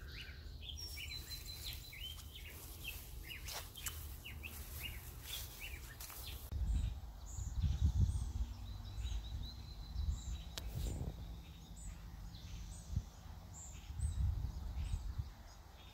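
Small birds chirping, many short calls in quick succession at first and then fewer, higher chirps. From about six seconds in, a low rumble of wind buffets the microphone.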